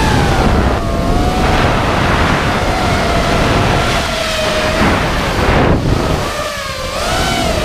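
FPV quadcopter's electric motors whining, the pitch dipping and rising with the throttle, over heavy wind rush on the onboard microphone.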